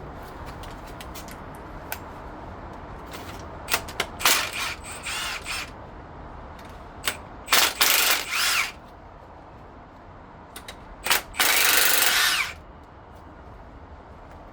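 Handheld power tool with a socket running in short bursts, backing out 9/16 in bolts from the front of an engine: two brief runs about four seconds in, a longer one around eight seconds and the longest, about a second, near the end, with small clicks and knocks of tools between.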